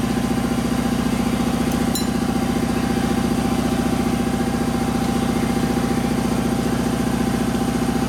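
A machine running steadily with a fast, even pulse, unchanged throughout, with one brief click about two seconds in.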